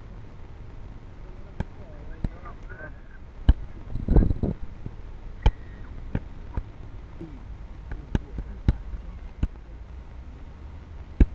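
Kicks and gloved punches smacking a handheld kick shield and pads: about ten sharp slaps at uneven intervals, with a louder, heavier burst of hits about four seconds in.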